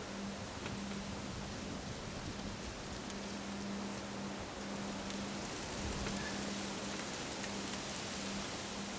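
Steady, even rushing noise of a windstorm blowing. A faint low hum runs under it, breaking off and coming back every second or so.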